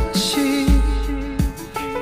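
Soft pop music with a slow, steady low beat under held notes.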